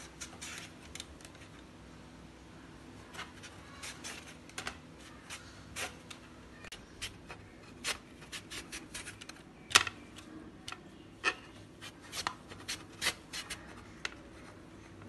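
Raw sweet potato being pushed across the blade of a handheld plastic slicer, cutting thin lengthwise slices: irregular short scraping strokes and sharp clicks.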